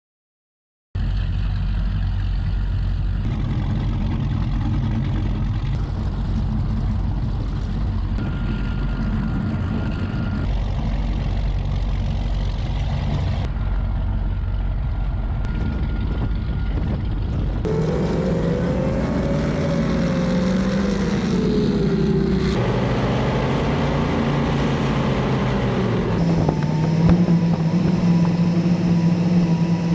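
Skater powerboat engines running at speed, heard onboard as a loud steady drone with wind and water rush, starting about a second in and joined by several abrupt cuts. In the second half the engine pitch rises and falls with throttle changes.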